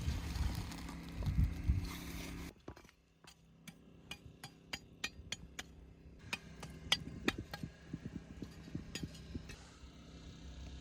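A low steady rumble that cuts off sharply, followed by a run of light, sharp clinks and taps of hard objects, a few a second and irregular.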